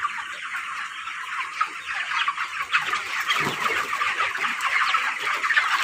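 A large flock of 25-day-old broiler chickens peeping all together: a dense, continuous chatter of many short high calls overlapping, growing a little louder near the end.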